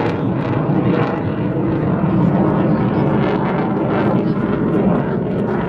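Military jet aircraft engine noise, loud and steady.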